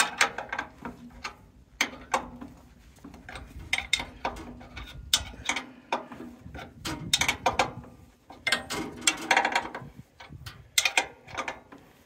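A steel combination wrench clicking and clinking against the engine's mounting and adjusting bolts on a sawmill as they are turned to tension the drive belt. The clicks come irregularly, in small clusters.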